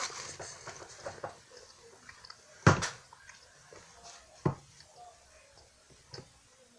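Close-miked eating noises of someone chewing flaky French Pie pastry, with scattered small clicks and knocks. There is a loud thump about two and a half seconds in and a shorter one about four and a half seconds in.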